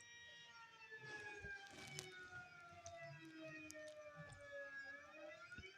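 Faint siren wail from an emergency alarm recording. Its pitch slides slowly down for about four seconds, then starts to rise again near the end.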